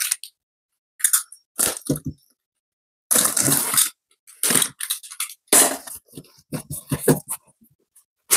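A cardboard carton being unsealed: its packing tape and plastic wrap are slit and torn, and the flaps are pulled open. The sound is a series of short scraping and rustling noises with silent gaps between them, the longest lasting about a second.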